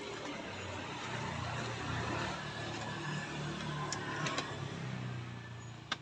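A motor vehicle passing on a nearby road, its engine hum swelling through the middle and easing off near the end, with a few light clicks about four seconds in.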